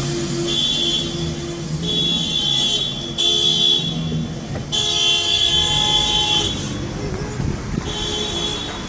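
Car horns honking repeatedly: about five steady blasts of roughly a second each, with a longer one of about two seconds in the middle, some overlapping.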